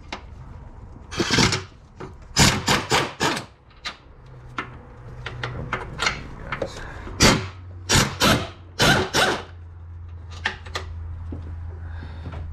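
Hand work among plastic and metal parts in a car's engine bay: short, irregular scraping and clicking strokes of a fraction of a second each, in several clusters, with a low steady hum underneath in the second half.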